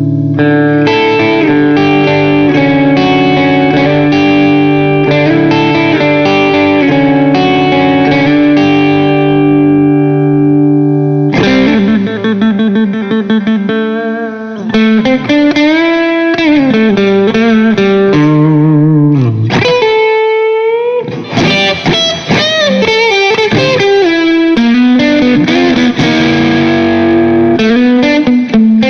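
Background music: distorted electric guitar playing sustained notes, then fast runs and bending notes from about eleven seconds in.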